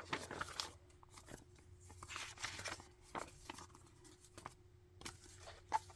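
Pages of a handmade junk journal being handled and turned, paper rustling and crinkling in soft, irregular strokes.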